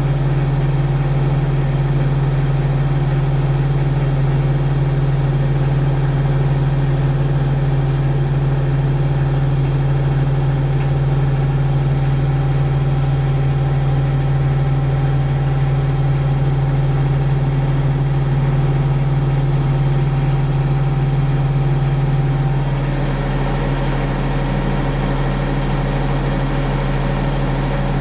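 Denyo DCA-15SS-N diesel generator's three-cylinder 1.6 litre Nissan diesel engine running steadily at its governed speed, fully warmed up and running smoothly. About 22 seconds in, the sound changes slightly and drops a little in level.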